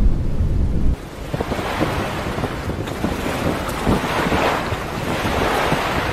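A low, muffled underwater rumble that cuts off about a second in as the camera breaks the surface. It gives way to splashing and sloshing seawater, with wind hiss on the microphone, as a great white shark's head thrashes at the surface.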